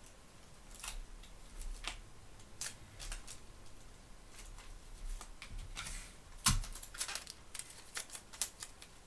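Scattered light crackles and clicks of thin Bible pages and clear adhesive tape being handled while loose pages are taped back in, with one sharper knock about six and a half seconds in.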